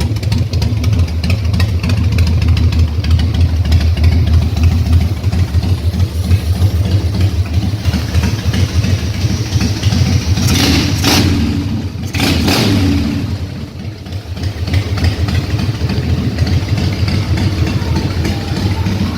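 Harley-Davidson Fat Boy's air-cooled V-twin idling after a carburetor rebuild, warming up for tuning. About halfway through the throttle is blipped twice in quick succession, then the engine settles back to idle.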